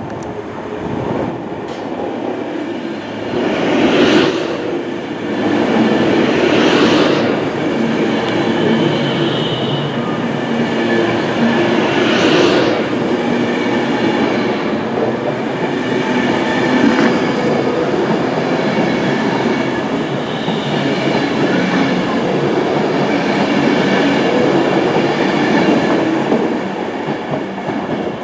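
Class 390 Pendolino electric train passing along the platform: wheel and rail noise rises about four seconds in, runs steadily with some clickety-clack over the rail joints, and eases near the end.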